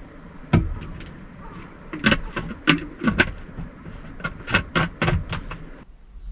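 Objects being handled at close range: a quick run of about a dozen knocks, clicks and clatters, most of them between two and five and a half seconds in, stopping about six seconds in.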